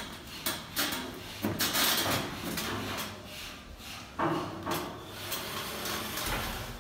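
A gypsum board panel scraping and knocking against a metal false-ceiling frame as it is pushed up into place: a few sharp knocks and a longer scraping rub about two seconds in.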